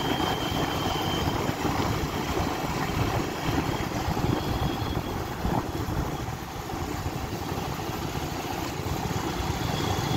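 Motorcycle running steadily on the move, its engine blending with rushing road and wind noise.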